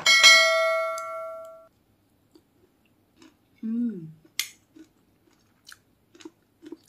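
A notification-bell chime sound effect from a subscribe-button overlay rings just after the start and fades away over about a second and a half. A short falling hum from the eater follows a few seconds later, with faint small clicks of a spoon on the plate.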